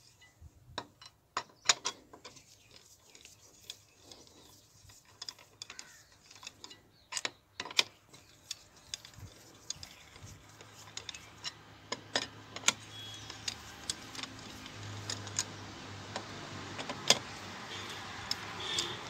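Irregular metallic clicks and clinks of a ratchet wrench and long socket extension working the cylinder head bolts loose. A low steady hum comes in about halfway.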